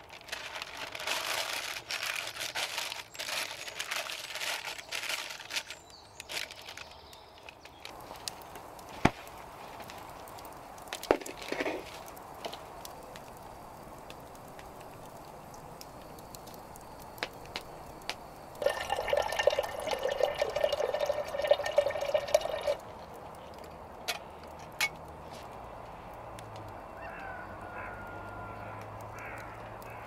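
A sheet of paper rustling and crinkling as it is spread over a ball of dough in a bowl, followed by a few sharp clicks. About nineteen seconds in, a louder steady sound with a ringing tone lasts about four seconds.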